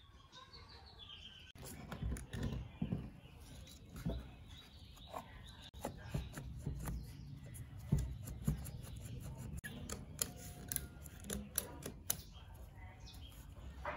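Scattered clicks and knocks of an old, rusty electric wood planer being handled by hand: fingers working at its cutter drum and the tool shifted and turned over on a concrete workbench.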